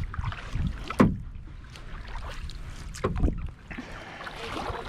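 Kayak paddling sounds: two sharp knocks, the louder one about a second in and another around three seconds, over a low rumble and water splashing.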